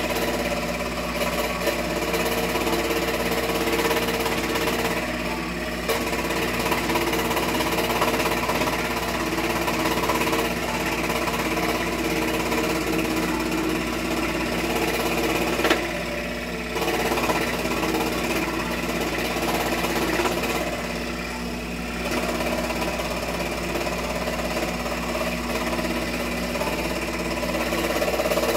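Wen scroll saw running steadily and cutting a wooden spoon blank, the blade's fast up-and-down chatter with a steady motor hum; the sound dips briefly a few times as the cut changes.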